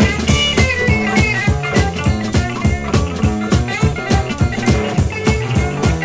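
Raw electric blues boogie played by two electric guitars and a drum kit, with no bass and no vocals: a steady, fast drum beat under a low repeating guitar figure, and high guitar lines that slide in pitch.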